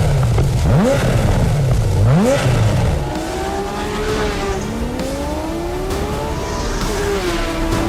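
Porsche Carrera GT's 5.7-litre V10 engine revving hard: two quick sharp blips in the first couple of seconds, then longer climbs in pitch that drop back and rise again as it pulls through the revs.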